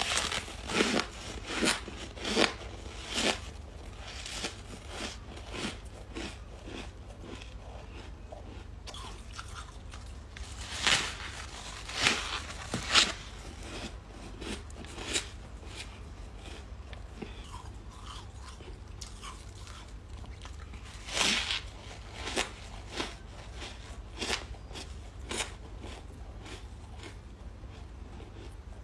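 A person biting and chewing ice: loud crunches come in clusters, a run of bites near the start, another about a third of the way in and more past the middle, with quieter chewing between them.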